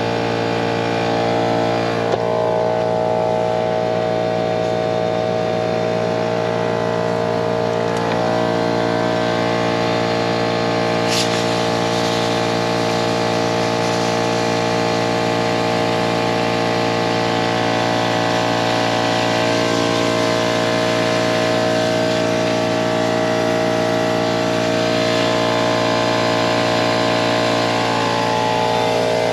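Air compressor running steadily, feeding compressed air into an RV's fresh-water lines to blow the water out of them.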